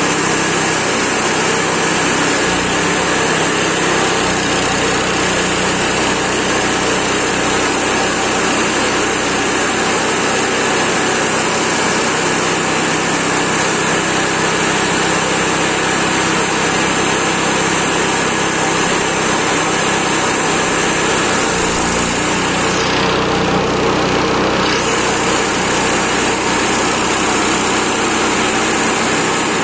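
Small petrol engine of a chipper shredder running steadily at working speed while leafy green branches are fed into its hopper. The sound changes briefly for about two seconds about three-quarters of the way through.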